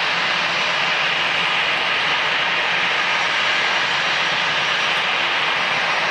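Airbus A320 jet engines running steadily, an even rushing hiss with a thin high whine over it and no change in pitch.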